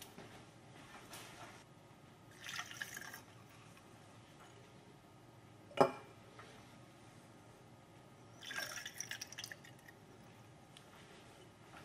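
Liquid poured through a glass funnel into a graduated cylinder in two short pours, hexane about two seconds in and water about eight and a half seconds in. A single sharp knock between the two pours is the loudest sound.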